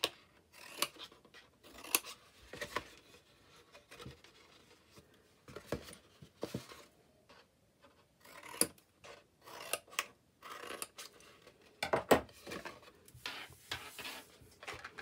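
Scissors cutting through thin cardstock in a series of short snips with pauses between, louder for a few cuts near the end, along with the rub of the card being handled.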